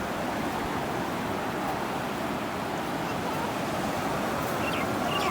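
Steady wash of sea waves on a beach, with no distinct breaks.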